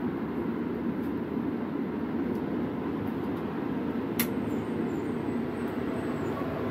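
Steady low rumble of machinery running in the parked ambulance, with a single sharp click about four seconds in.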